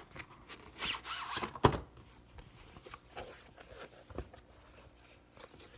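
A playmat being pulled out of its box and handled: a rustling slide about a second in, a sharp knock just after, then light scattered clicks and rubbing.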